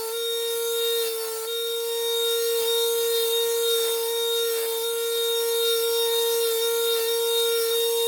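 Electric grinder running with a steady high whine, with faint irregular strokes of a knife blade worked against it while the edge is put on.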